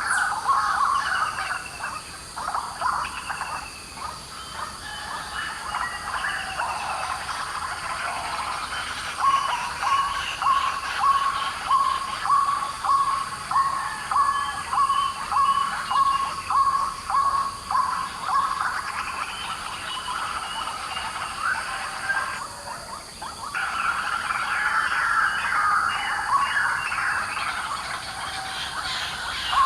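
White-breasted waterhens calling noisily: overlapping harsh repeated calls, with a long run of evenly spaced notes at about two a second through the middle.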